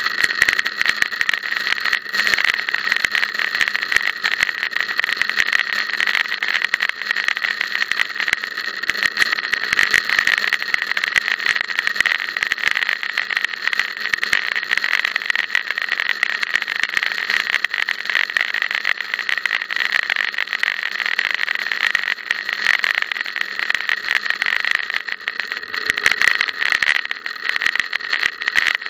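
Road noise of a moving bicycle heard through a bike-mounted camera: a steady rattling hiss from the tyres and the frame's vibration on the tarmac, thick with small clicks from bumps.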